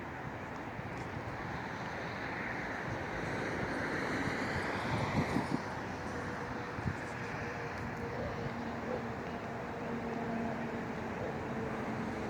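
Road traffic: a vehicle passes, swelling and fading about four to five seconds in, with a few soft knocks as it goes by, then a faint steady hum of engines.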